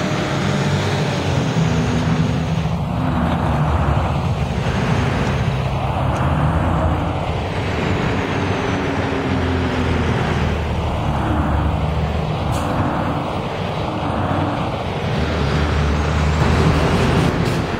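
City diesel buses running and passing close by amid street traffic. The low engine drone is steady, with a whooshing rise and fall each time a vehicle goes past, several times over.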